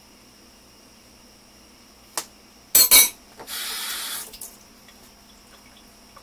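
Kitchenware clattering: a light click, then a loud clatter about two and a half seconds in, followed by about a second of steady rustling noise.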